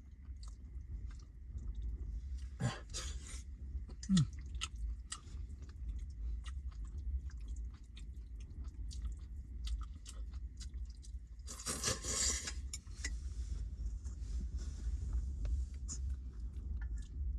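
A person chewing and eating, with small clicks and knocks of a bowl and utensils, over a steady low rumble of strong wind. About twelve seconds in there is a brief louder rustle.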